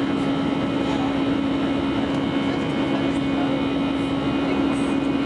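Jet airliner cabin noise during the climb after takeoff: the engines and airflow make a steady rushing noise with a constant low hum running under it.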